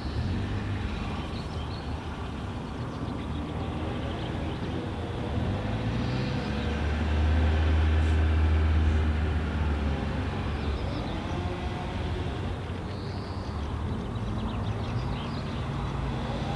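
Low engine rumble of a passing vehicle, swelling to its loudest about halfway through and then fading, with a few short bird chirps over it.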